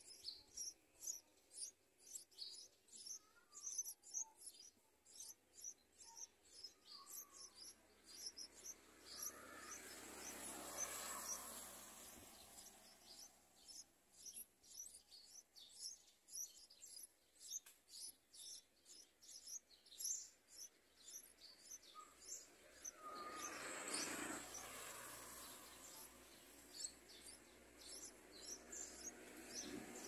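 Yellow-vented bulbul nestlings begging: faint, high, thin chirps repeated about two to three times a second while the adult feeds them at the nest. Twice a soft rushing noise swells and fades.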